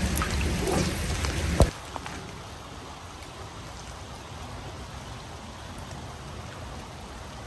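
Steady rain falling, louder for the first second and a half. A sharp click follows, and the rain drops suddenly to a quieter, even hiss.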